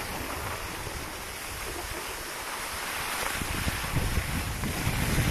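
Wind buffeting the microphone over a steady hiss, the low buffeting growing stronger from about three seconds in.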